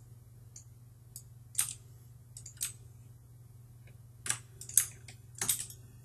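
Scattered, irregular clicks of a computer mouse and keyboard in use, some in quick pairs, over a faint steady low hum.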